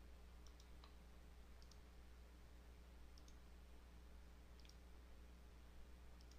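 Near silence with about half a dozen faint computer mouse clicks, several in quick pairs, over a steady low electrical hum.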